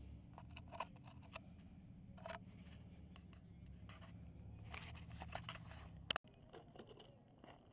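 Handling noise from a quadcopter's camera held in the hand: faint scattered clicks and rubbing over a low rumble, with a sharp click about six seconds in, after which the sound drops out abruptly.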